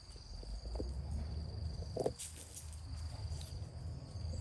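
An insect trilling steadily on one high pitch, over a low rumble, with one short sharp tap about two seconds in.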